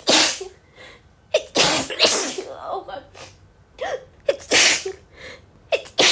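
A woman sneezing over and over in a sneezing fit: a sharp intake of breath, then a loud sneeze, repeated about every one to two seconds.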